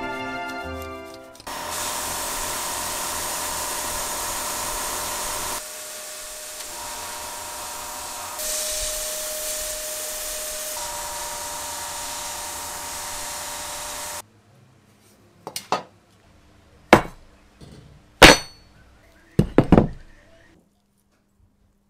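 Abrasive blasting in a blast cabinet: a steady hiss of compressed air and grit from the blast gun, jumping in level at a few cuts and stopping abruptly about fourteen seconds in. Then about six sharp knocks, the loudest sounds here, as the blasted bare steel tricycle part is handled on the bench.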